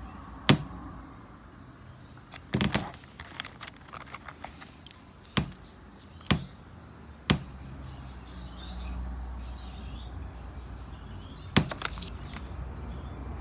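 Pieces of rough opal clicking and clinking as they are handled and set down on a hard surface: single sharp clicks and a couple of short clattering clusters.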